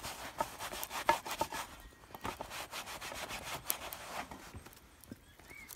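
A cloth rubbing cooking oil into the steel blade of an old folding military spade, scratchy back-and-forth wiping strokes that thin out over the last second: the blade is being seasoned with oil before it is burnt in over the fire.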